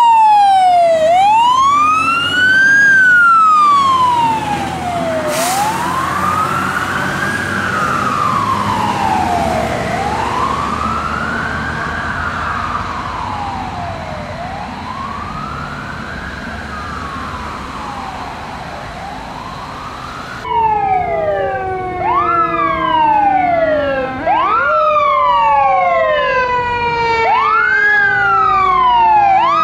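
Pierce fire engine's siren on a slow wail, sweeping up and down about every four and a half seconds and slowly fading as the truck moves away. About two-thirds in it gives way to a louder, faster siren pattern with sharp rises and slower falls, two or more sirens overlapping.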